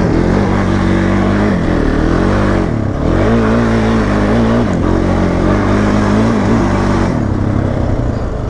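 An off-road vehicle's engine revving hard through donuts and slides: it holds high, eases off briefly and climbs back a few times, then drops to a lower speed about seven seconds in.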